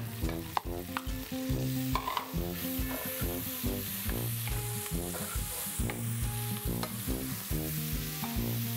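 Chopped onion and diced meats sizzling as they fry in an aluminium pot, while a wooden spoon stirs and scrapes through them with occasional knocks against the pot. Background music with a steady beat plays underneath.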